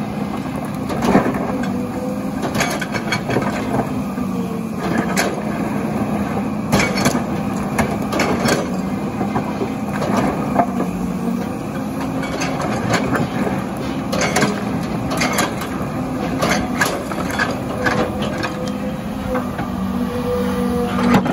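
Hitachi hydraulic excavator's diesel engine running steadily under load as its steel bucket digs into a pile of broken rock, with repeated knocks and clatter of stones scraping and tumbling against the bucket.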